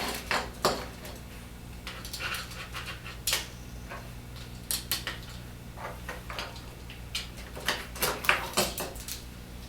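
Plastic parts of a vertical blind track clicking and knocking in irregular sharp clicks as they are handled and a new replacement part is fitted, over a steady low electrical hum.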